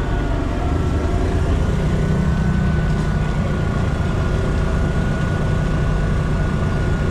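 A motor running steadily: a low rumble with a thin, steady whine above it.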